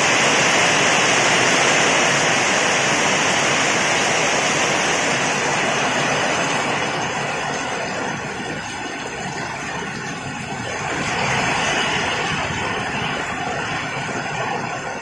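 Heavy rain pouring down in a steady rush, easing somewhat after the first several seconds and swelling again briefly near the end.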